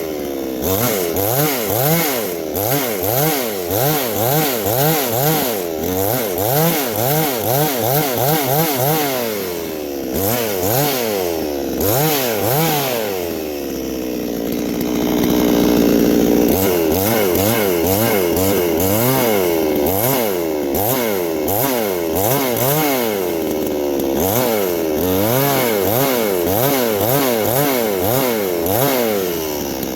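Chainsaw engine revving up and down about twice a second as it shaves bumps off a sill log. A little past the middle it holds a steady pitch and is at its loudest for a couple of seconds, then goes back to rising and falling.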